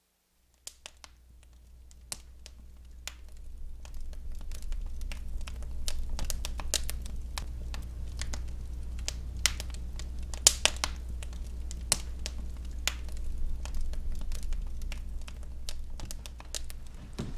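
Wood fire crackling in a fireplace: irregular sharp pops and snaps over a steady low hum, fading in over the first few seconds.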